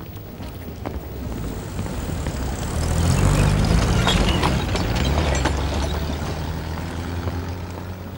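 A motor vehicle's engine passing close by, swelling to its loudest about three to four seconds in and then fading, with some light rattling at its closest.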